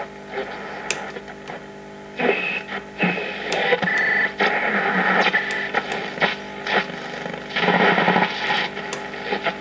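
A 1955 Siera SA1022U tube radio's loudspeaker as it is tuned across the 49-metre shortwave band: static, brief whistles and snatches of stations coming and going, louder after about two seconds.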